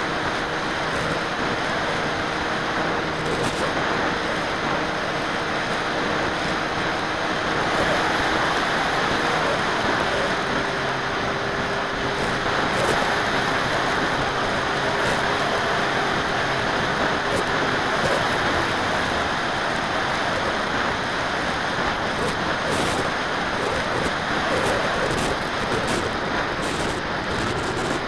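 Airflow rushing over the microphone of a small FPV aircraft's onboard camera in flight, with a faint motor and propeller whine underneath that drops in pitch a couple of times.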